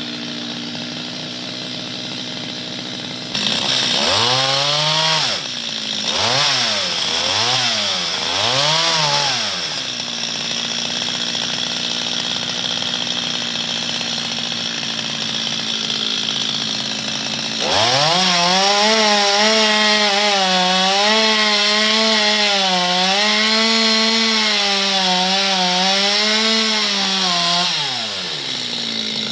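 A two-stroke chainsaw running at idle is blipped up and down about four times. About halfway through it is held at high revs for about ten seconds, its pitch wavering under load as it cuts into mango wood, then it drops back to idle near the end.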